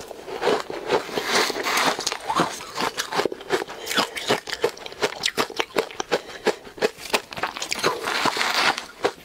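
Close-miked chewing of powdery ice coated in matcha powder: many quick, crackly crunches in rapid succession.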